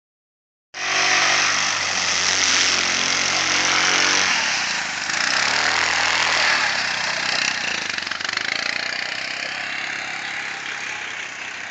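ATV (four-wheeler) engine running steadily, then shifting in pitch as the quad drives close past. The sound then slowly fades as it pulls away.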